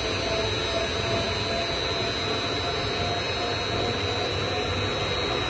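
A 100-litre double sigma-blade (Z-blade) kneader mixer and its discharge screw running at maximum speed: a steady mechanical running noise with a constant high-pitched whine.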